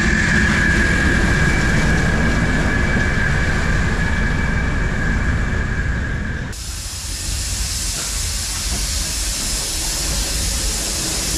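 Diesel-electric shunter D4106 running, a low engine rumble with a steady high whine. About six and a half seconds in the sound cuts to a steady hiss of steam from a small tank steam locomotive, the terrier tank Fenchurch, standing with its carriages.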